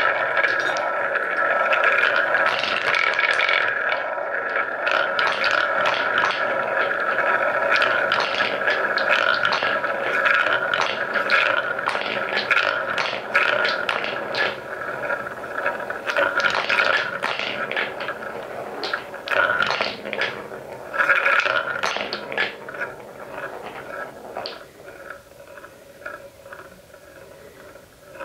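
Wooden balls rolling round a shallow wooden bowl: a steady rolling rumble broken by frequent clicks as the balls knock together and drop through the hole in the middle. The sound thins out over the last few seconds as the last balls circle alone.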